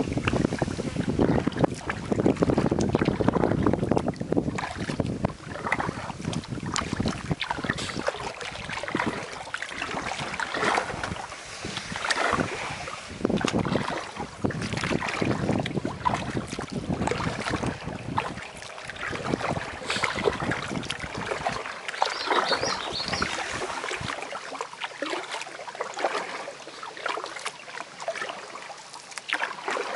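Wind buffeting the microphone on a kayak's bow, mixed with the splash and drip of paddle strokes in the water. The low wind rumble eases off near the end.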